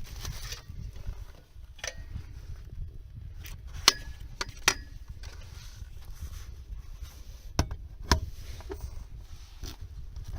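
Scattered clicks and knocks, loudest about four seconds in, from handling a portable smoke tester against a ceiling-mounted smoke detector, over a low steady rumble.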